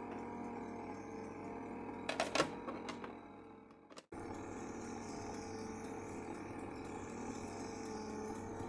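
Gaggia Gelatiera ice cream maker running, its motor turning the paddle through thickened, finished strawberry ice cream with a steady hum. A few plastic clicks about two seconds in as the lid is handled, and the hum drops out briefly near four seconds before resuming.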